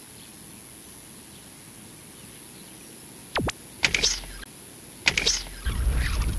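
Quiet waterside background. About three and a half seconds in comes a sharp click, followed by two short splashy bursts, as the float goes under and a fish is struck and hooked on the pole rod. A steady low rumble comes in near the end.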